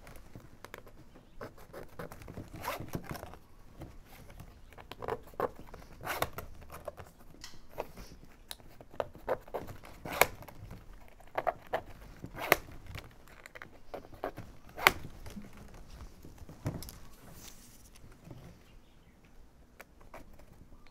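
Plastic baling strap being pulled and threaded through the weave of a strap basket: irregular scraping and rustling as it slides against the other straps, with several sharp clicks and snaps.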